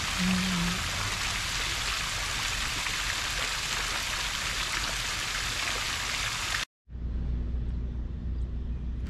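Fountain jets splashing into a stone basin, a steady hiss of falling water that cuts off suddenly about two-thirds of the way through. A short low tone sounds just after the start, and a low steady rumble follows the cut.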